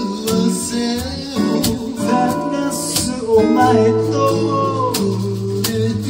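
Live acoustic music: a steel-string acoustic guitar strummed, a cajon keeping the beat with sharp regular hits, and a man's voice singing over them.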